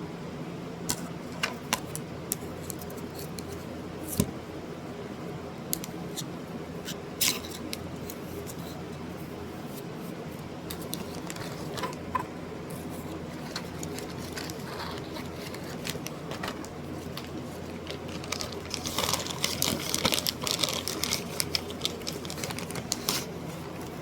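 Steady low hum with sharp clicks scattered through it. The clicks come thick and fast for a few seconds near the end.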